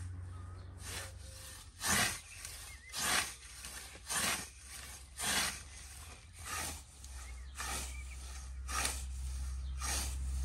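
Hand scythe mowing tall grass: a steady run of swishes, about one stroke a second, as the blade sweeps through the stems, over a low steady rumble.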